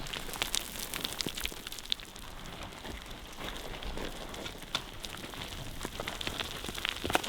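Close crackling and rustling over a steady hiss, with many small irregular clicks and a louder cluster near the end: handling noise of clothing or gear against the microphone.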